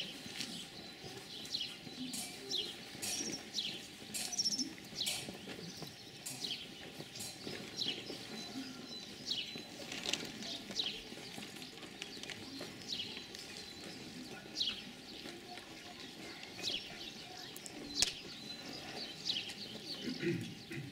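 Birds chirping outdoors: many short, high, falling chirps at an irregular pace, over a faint low murmur.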